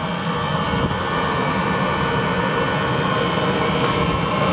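Eberspacher diesel night heater running without an exhaust silencer: a loud, steady rushing drone with high whining tones over it. The owner likens it to a jet airliner taking off.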